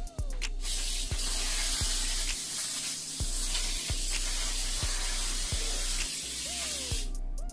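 Aerosol can of Baker's Joy baking spray coating a cake pan so the batter won't stick: one long continuous hiss that starts about half a second in and stops near the end.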